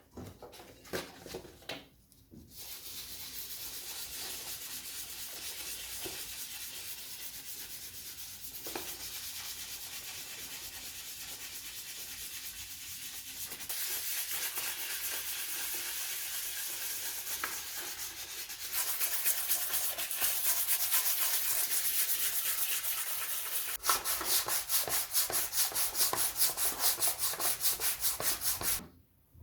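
Sandpaper rubbing over a primed 3D-printed PLA surface: a steady scratchy hiss begins a couple of seconds in after a few light knocks. Later it turns louder, with quick back-and-forth strokes, and stops just before the end.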